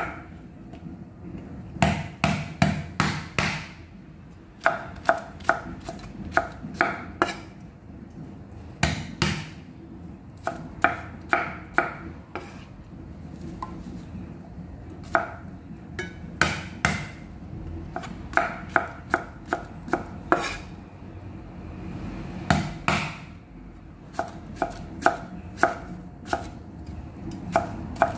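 Chinese cleaver slicing cucumber on a round wooden chopping block: quick runs of sharp knocks of the blade on the wood, broken by short pauses.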